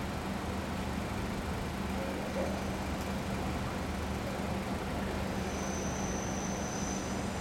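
Steady low engine hum of idling road vehicles over a wash of traffic noise. A faint, high, steady squeal joins about five seconds in.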